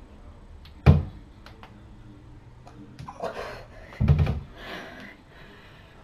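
Two dull thuds during pull-ups on a doorway pull-up bar: a sharp, loud one about a second in, then another about four seconds in as he drops from the bar to the floor. Hard breaths come around the second thud.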